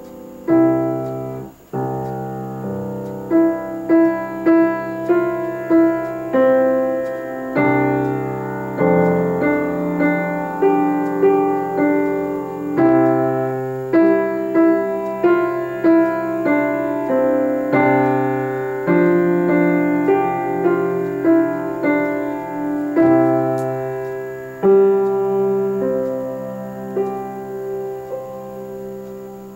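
Solo grand piano playing: a melody over chords and held bass notes, with evenly spaced accented notes and a short break about two seconds in.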